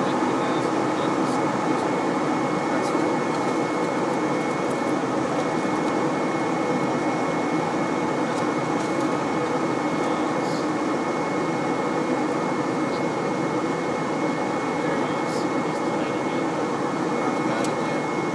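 Steady cockpit noise of a small fixed-wing aircraft in flight on approach: engine and airflow make an even noise with a thin, high steady whine running through it.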